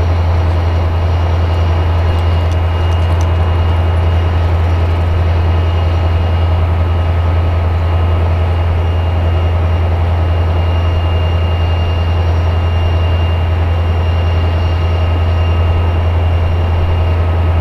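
SNCF CC 72100-class diesel locomotive's Pielstick diesel engine running steadily: a deep, even hum with faint steady high whines over it.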